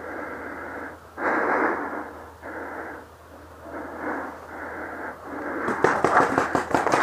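Heavy, rhythmic breathing from a paintball player crouched behind cover, each in and out breath a rasping rush of air close to the mic. Near the end a rapid clatter of knocks starts as he moves off.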